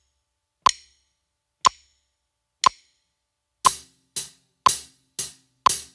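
Metronome clicking once a second at 60 beats per minute. About three and a half seconds in, a hi-hat struck with a drumstick joins, played twice per click in even eighth notes.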